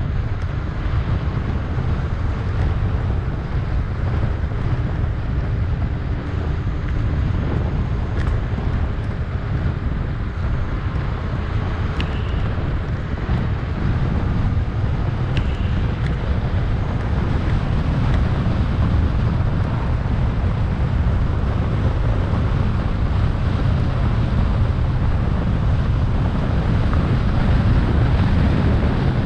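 Wind buffeting the microphone: a steady low rumble that never lets up, with two faint, brief high chirps near the middle.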